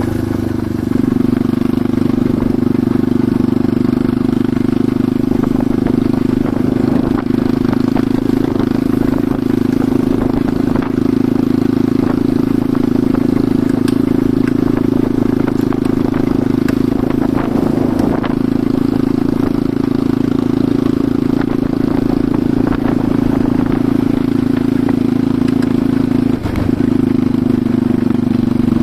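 Enduro motorcycle engine running steadily under way, with scattered clatter. The engine note briefly dips near the end.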